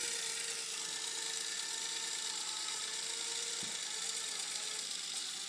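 Small electric motor of an Erector Set model running steadily, whirring as it drives its gears to spin the mower's blade.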